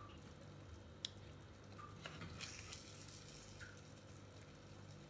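Faint sounds of thick fish masala being served with a wooden spoon into a ceramic bowl, with one sharp tap about a second in, over a low steady hum.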